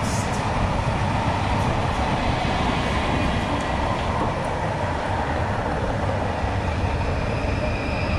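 PKP Intercity ED160 Stadler FLIRT electric multiple unit passing close by, its wheels rolling on the rails with a steady, loud, even noise.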